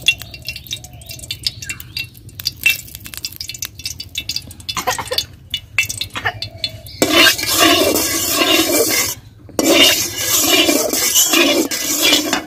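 Metal cooking sounds from a steel karahi: scattered light clinks and taps, then from about seven seconds a louder, rough, continuous clatter that breaks off briefly near the middle of it.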